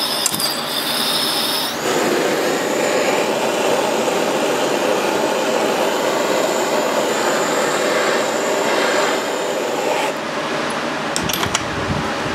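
Gas hand torch flame burning steadily while annealing a pressed silver piece on a soldering block, cutting off about ten seconds in. A high whistling comes in the first two seconds, and a few light clicks of metal handling follow near the end.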